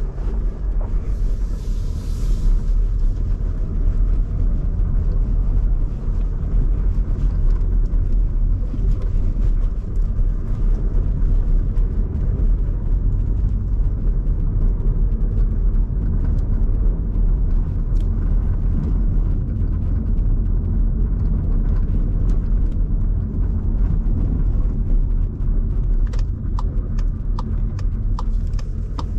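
Skoda Kamiq with its 1.0 TSI three-cylinder turbo petrol engine on the move: a steady low rumble of tyre and road noise mixed with the engine. A few light clicks come near the end.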